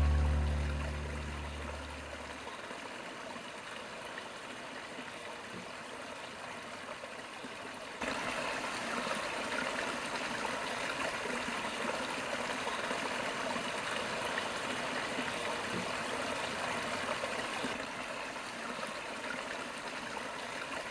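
River water flowing, a steady rushing with no distinct splashes, louder after a cut about eight seconds in. The tail of background music fades out in the first two seconds.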